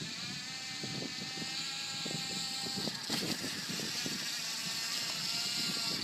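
Radio-controlled car running: its motor gives a steady pitched tone, under irregular rattling and knocking from the car bouncing over the ground, with a sharper knock about three seconds in.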